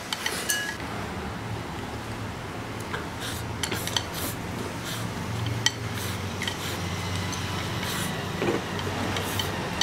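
Wooden chopsticks clicking and scraping against a porcelain rice bowl while eating, a scattered handful of sharp clinks. A steady low hum runs underneath.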